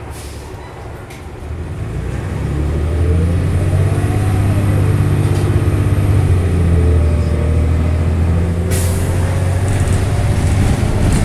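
2009 Orion VII NG CNG city bus heard from inside the cabin, its natural-gas engine pulling away and getting louder over the first few seconds, with a drivetrain whine that rises and then falls. Short hisses of air from the air brakes come at the start and again near the end.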